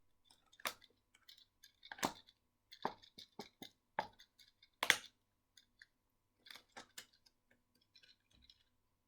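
Thin plastic bottle crackling and snapping in irregular sharp clicks as small holes are pierced and cut in it with nail scissors.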